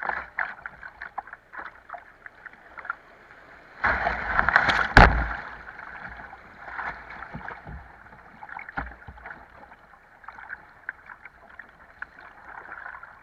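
River water rushing and splashing around a kayak's bow as it runs a riffle of rough water. About four seconds in there is a burst of much louder splashing, lasting about a second and a half. After that the water flows more calmly.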